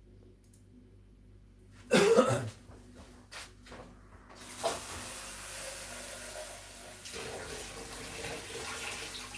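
A loud cough about two seconds in, a few clicks, then a water tap running steadily from about four and a half seconds on.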